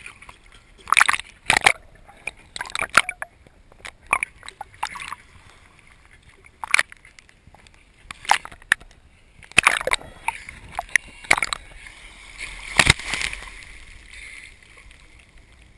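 Small sea waves slapping and sloshing against a waterproof action-camera housing that floats at the surface, in irregular splashes every second or two.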